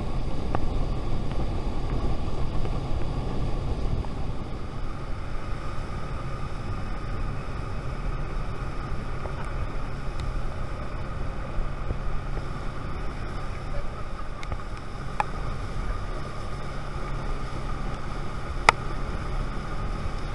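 Outboard motor pushing a small aluminium boat along at speed, a steady hum with water rushing past the hull and wind on the microphone. One sharp click sounds near the end.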